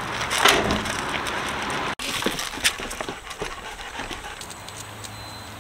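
Footsteps and dog paws crunching on loose gravel, then, after a cut about two seconds in, scattered taps of shoes and dog claws on a wooden boardwalk.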